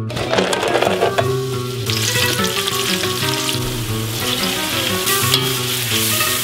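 Raisins and shredded carrots sizzling in hot vegetable oil in a stainless steel pot and being stirred; the sizzling gets much stronger about two seconds in.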